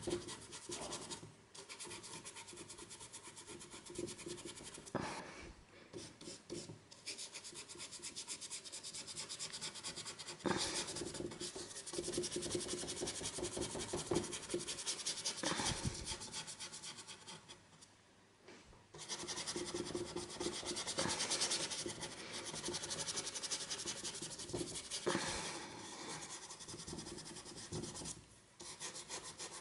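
Paintbrush bristles scrubbing oil paint onto canvas in quick back-and-forth dry-brush strokes: a steady rasping rub, broken by a few short pauses, the longest about halfway through.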